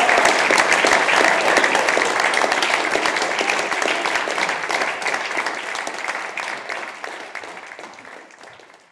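Audience applauding, a dense patter of many hands clapping that gradually fades out and stops near the end.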